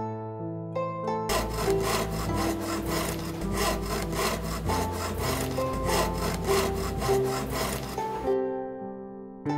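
Hand-operated bow drill boring into folding-fan ribs: a quick, rhythmic back-and-forth rasp of a few strokes a second that starts about a second in and stops shortly before the end, over soft plucked-string music.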